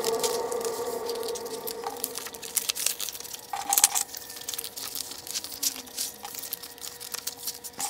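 Thin plastic and paper sticker sheets being slid into a plastic folder's sleeves: crinkling, rustling and sharp plastic clicks, loudest a little under four seconds in. A faint steady hum runs underneath.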